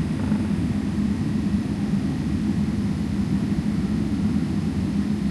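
Steady low rumble of a Boeing 777-300ER heard from inside the cabin, its GE90 engines running, with a steady low hum running through it.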